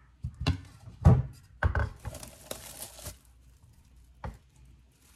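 Plastic cling wrap being peeled off a metal springform cake pan: a few knocks and thumps as the pan is handled on the counter, then about a second of crinkling plastic film.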